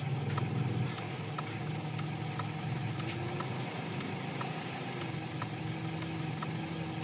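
Car engine idling steadily, with a light tick about twice a second. The engine note drops slightly about a second in.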